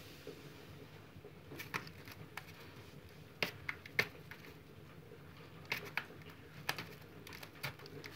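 Faint, scattered light taps and scuffs, a few short clicks spaced about a second apart, as a cat bats and paws at a hand on a cardboard mat.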